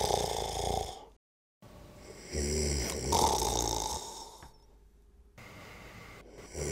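A person snoring: long, deep snores a few seconds apart, with near-silent pauses between them, the next snore starting near the end.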